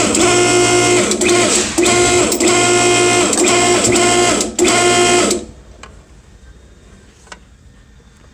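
Hydraulic hose crimper's pump running as the foot pedal is pressed, with the dies closing on the hose fitting. It runs in short runs with brief breaks, then stops about five seconds in, followed by a few faint clicks.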